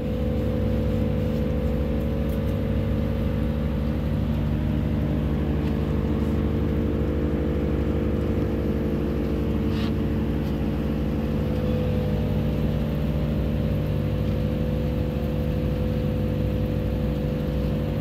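Steady mechanical hum of a running motor, with several steady tones and no change in pitch or level.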